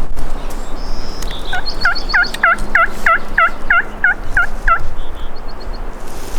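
Turkey yelping: a steady series of about ten yelps, roughly three a second, with faint high songbird chirps around it.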